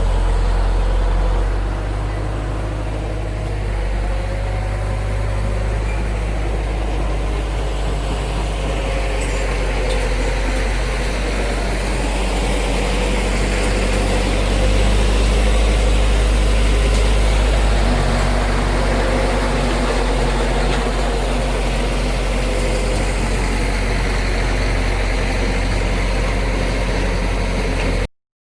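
Bulldozer's diesel engine running steadily with a deep low rumble, growing a little louder about halfway through.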